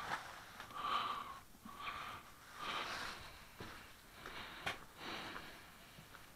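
Soft, irregular rustling of fabric gloves and winter gear being handled, with breathing close to the microphone.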